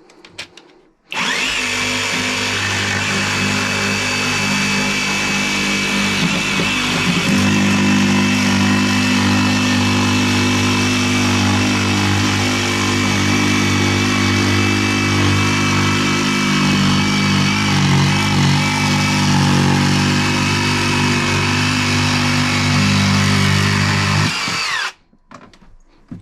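Greenworks GD24JS cordless jigsaw cutting through thick chipboard. The motor starts about a second in and runs at a steady pitch as the blade saws through the board, then stops abruptly near the end.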